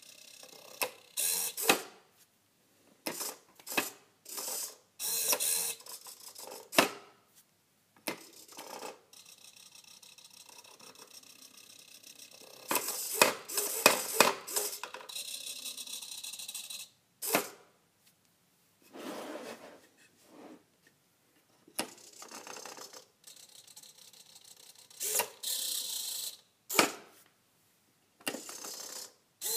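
Homemade wooden useless machine cycling several times: its toggle switch clicking, a small motor whirring as the arm swings out to push the switch back, and the wooden lid clacking shut, in short bursts with quiet gaps between.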